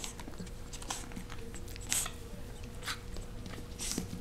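Japanese Chin puppy mouthing and nipping at a hand in play, with scuffling noises about once a second.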